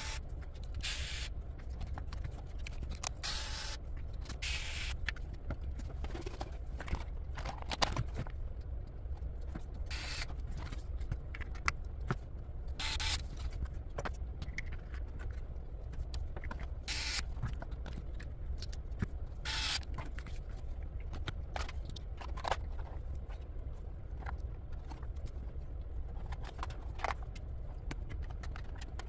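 Hand work on an RC car chassis: a scatter of short scrapes, rustles and clicks from parts and small tools being handled, over a steady low hum.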